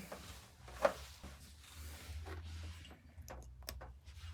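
Fan power cable being plugged in: one sharp click about a second in, followed by a few faint handling clicks.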